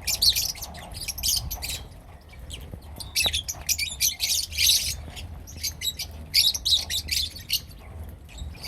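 Several lovebirds (Agapornis) chattering in quick bursts of shrill, high chirps, with short lulls between the bursts.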